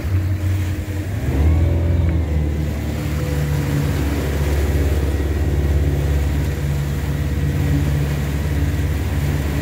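Fishing boat's engine running under way, picking up about a second in and then holding a steady drone, with water rushing in the boat's wake.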